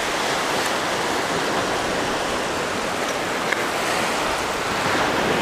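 Ocean surf washing steadily onto the beach.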